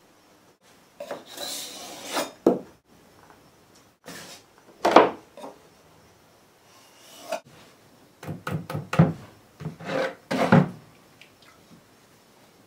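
Scraping strokes of a putty knife blade run along painter's tape to press and seal its edge against the baseboard, coming in several irregular bursts.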